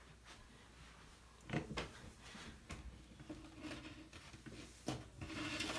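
Quiet handling noise from stripped extension-cord wire being moved about: a few scattered clicks and rustles, starting about a second and a half in.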